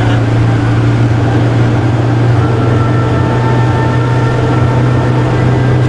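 Tour coach driving, heard from inside the cabin: a steady low engine drone over road noise, with a faint higher whine that joins about two seconds in.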